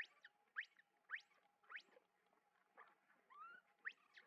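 Baby macaque crying for its mother: a series of short, high squeaks that sweep quickly up in pitch, about two a second, with a lower rising coo about three seconds in.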